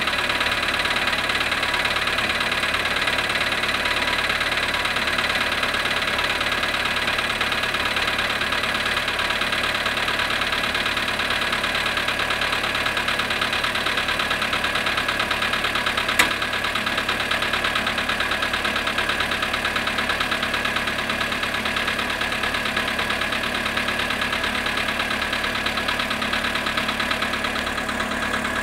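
Volkswagen Polo sedan engine idling shortly after a cold start at −7.5 °C, with a fast, even knock running through the idle, the engine knock the owner is recording. One sharp click sounds about 16 seconds in.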